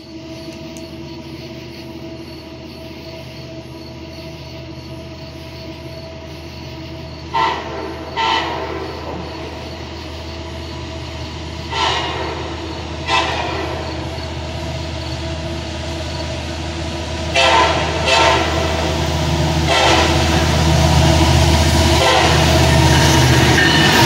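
Approaching diesel freight train sounding its air horn in short blasts, mostly in pairs, about seven in all. Underneath, the low locomotive rumble grows steadily louder until the engines reach the platform at the very end.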